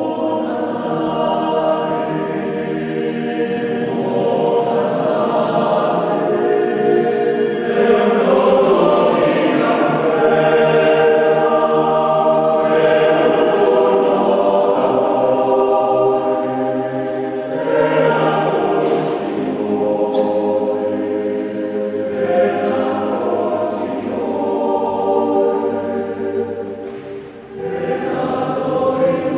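Choir singing unaccompanied in a large church, with sustained, overlapping voices. Near the end the singing briefly drops away, as at the break between phrases, and then resumes.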